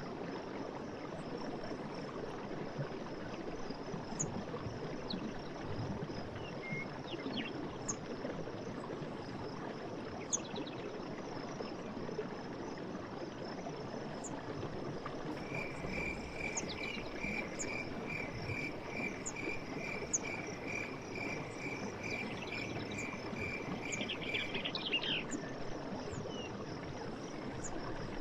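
Night forest ambience: insects keep up a steady high trill over a constant rushing noise. From about halfway through, another animal gives a run of short repeated notes, about two or three a second, for some nine seconds.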